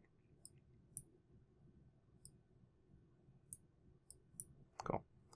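Faint computer mouse clicks, about half a dozen scattered over a few seconds, against near silence, with one short louder sound a little before the end.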